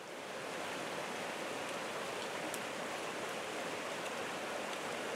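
Rushing mountain creek: a steady, even rush of flowing water over rocks.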